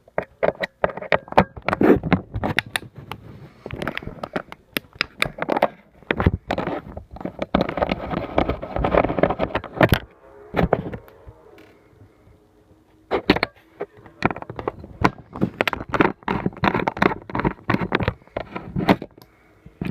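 A hand tool scraping, prying and clicking against the metal parts of a hard drive's read-head assembly during disassembly, in irregular bursts of sharp clicks and scrapes. The work pauses for about two seconds just past the middle, then resumes.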